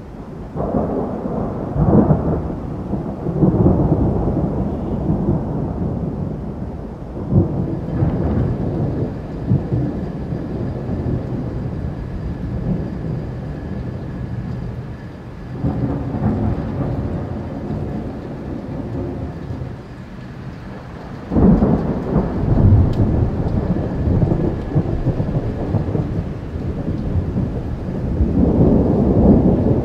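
Thunder rumbling in repeated rolling surges through a heavy thunderstorm, over steady rain. A sudden louder crash comes about two-thirds of the way through, and another long roll builds near the end.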